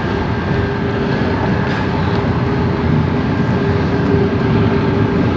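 Semi truck's diesel engine idling steadily: a low, even rumble with a constant hum.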